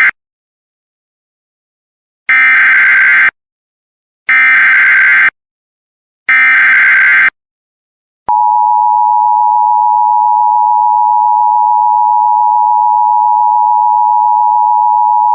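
Emergency Alert System tones: the end of a short end-of-message data burst right at the start, then three one-second buzzy SAME header data bursts two seconds apart, then about eight seconds in a long, steady, loud single-pitch alert attention tone. This is the header and alarm that open a new warning.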